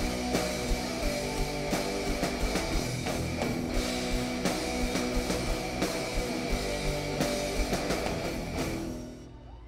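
Live metal band playing an instrumental passage: distorted electric guitar over a steady drum-kit beat. The song ends about nine seconds in, the sound dropping away.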